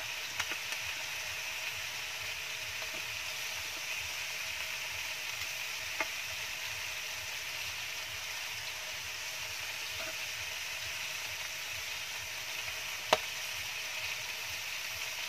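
Chicken pieces sizzling steadily in a non-stick grill pan over a wood fire. A few sharp clicks of a utensil against the pan come through, the loudest about thirteen seconds in.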